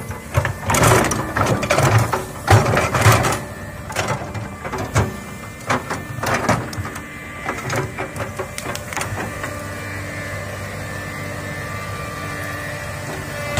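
Hydraulic crawler excavator's diesel engine and hydraulics running, with a string of knocks and clatters from the bucket working the ground during the first half. It then settles to a steady engine drone with a whine on top.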